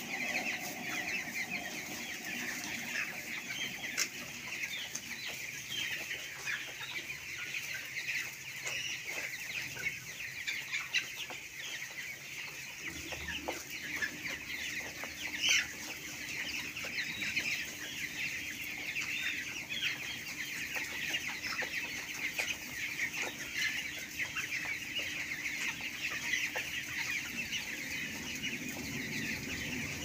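A large flock of broiler chickens in a poultry shed calling all at once, a dense, continuous chatter of many overlapping short calls.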